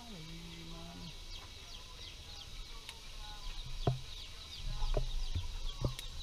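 A rooster's crow trails off and ends about a second in, over rapid chirping of small birds. Then a metal ladle knocks and scrapes against a pan of meat as it is stirred, several sharp knocks over a low rumble.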